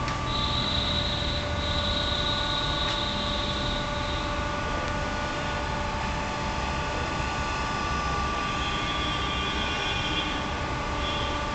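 Hydraulic power unit of a scissor car lift, its electric motor and pump running steadily under load as the platform rises: a steady hum with several fixed tones. A higher whine joins in for the first few seconds and again near the end.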